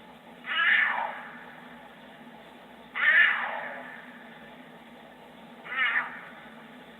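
A cat meowing three times, each call falling in pitch.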